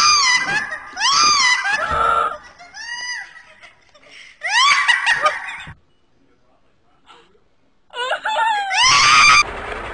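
High-pitched shrieks, one after another, each rising and falling in pitch, with some laughter mixed in. They break off for about two seconds past the middle, then start again briefly before a steadier outdoor noise takes over near the end.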